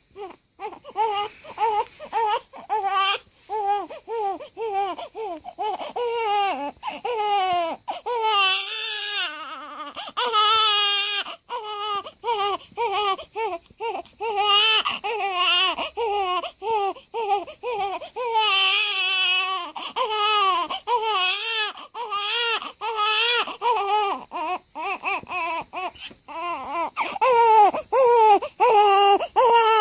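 Newborn baby crying in a run of short, repeated wails, with a couple of longer drawn-out cries in between.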